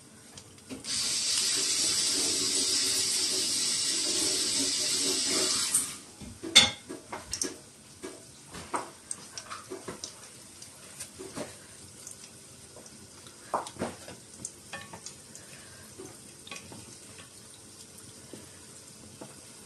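Water running from a kitchen tap for about five seconds, starting and stopping suddenly. After it, scattered small crackles and clicks from the cutlets shallow-frying in oil.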